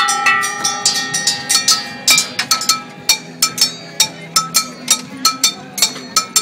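Scrap-metal percussion sculpture, its pans, cymbals and bells struck with sticks in a quick, fairly even beat of about three to four hits a second, each hit a sharp clank with a brief metallic ring.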